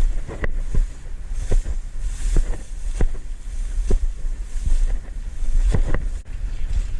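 Wind buffeting the camera microphone with a heavy low rumble, broken by a handful of short sharp clicks or knocks at irregular intervals.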